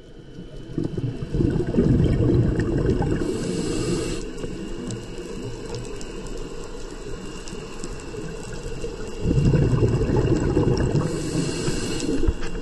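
Scuba diver breathing underwater through a regulator: two long bubbling exhalations, starting about a second in and again about nine seconds in, each ending with a short hiss.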